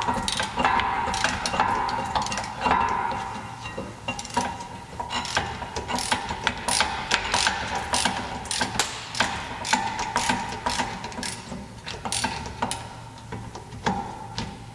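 Ratchet wrench clicking in quick irregular runs as it is swung back and forth on a rear brake caliper bolt.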